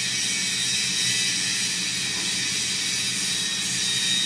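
Steady factory background noise: a continuous hiss with a low machinery hum underneath, with no distinct knocks or clatter.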